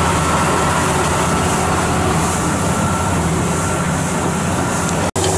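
John Deere tractor's diesel engine running steadily under load as it tows a loaded lime spreader, heard from on the spreader, with a rumble of the rig moving over the field. The sound cuts out for an instant near the end.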